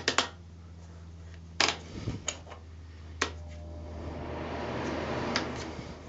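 Control knobs of a SIP PTC-2500-G ceramic fan heater clicking as they are turned, five clicks spread over several seconds. From about three and a half seconds in, the heater's fan starts blowing with a rising rush of air that peaks about five seconds in and then eases off; on this heater the fan comes on only once the thermostat knob is turned up.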